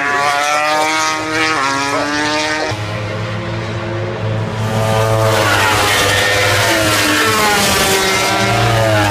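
Racing motorcycle engines at high revs, the pitch climbing and then dropping back through gear changes. The engine sound grows louder from about five seconds in as a bike accelerates along the straight.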